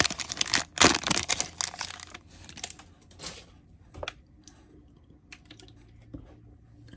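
Foil trading-card booster pack wrapper crinkling and tearing open, dense and loudest in the first two seconds with a sharp crackle about a second in. After that come a few light clicks of the pulled card stack being handled.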